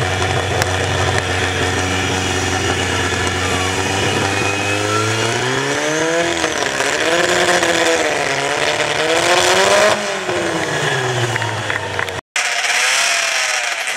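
Competition hot saw, an oversized chainsaw driven by a converted vehicle engine, running loud and steady, then revving up and down in wavering swells before dropping back about ten seconds in. Near the end the sound cuts out for a moment, and then the engine runs at lower, stepping speeds.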